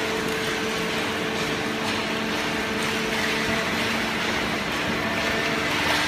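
Horizontal hydraulic cardboard baler and its feed conveyor running: a steady machine hum with several held tones over a noisy wash.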